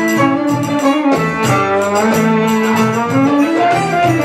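Live belly-dance band music: a violin playing the melody over plucked strings, with evenly spaced percussive strokes keeping a steady beat.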